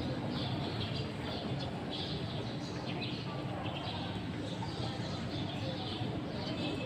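Small birds chirping in short repeated bursts over the low, steady murmur of a standing crowd.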